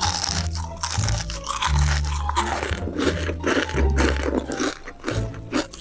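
Crispy fried chicken crunching as it is bitten and chewed, over background music with a bass line.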